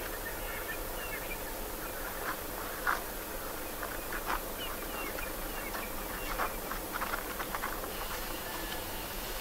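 Outdoor bush ambience: a steady hiss with faint bird chirps, and a few short soft sounds, the most distinct about three seconds in.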